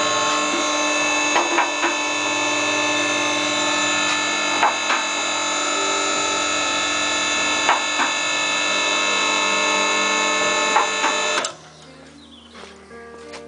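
Electric hydraulic power unit of a Dunlop DL4 two-post vehicle lift running steadily as it raises a Land Rover of about two tonnes, with a pair of sharp clicks about every three seconds as the safety locks on the two posts catch. The motor cuts off suddenly near the end.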